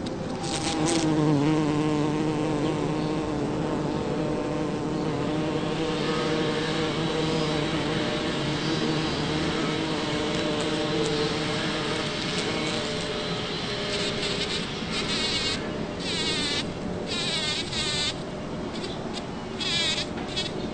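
Bumblebee buzzing: a steady, low pitched drone with overtones, strongest through the first half and fainter later. Quick, wavering high-pitched chirps break in several times during the second half.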